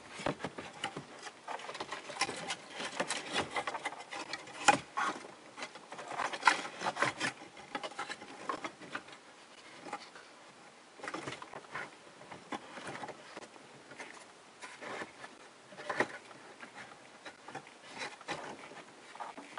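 A car stereo in its Metra plastic dash-kit bracket being worked into a Toyota Tacoma dash opening by hand: irregular scraping, rubbing and small clicks of plastic against plastic. The sharpest knocks come about five and six and a half seconds in.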